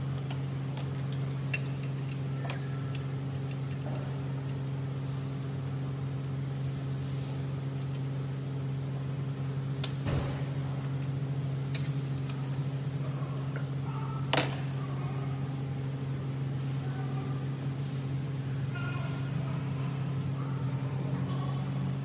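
Toyota Yaris engine idling with the hood open, a steady hum from the front of the engine. A few short clicks rise over it, the sharpest about fourteen seconds in.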